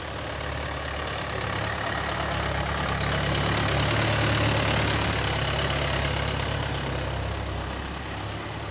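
Mahindra 475 DI tractor's four-cylinder diesel engine running steadily as the tractor drives over spread paddy straw. It grows louder as the tractor passes close by about halfway through, then eases off.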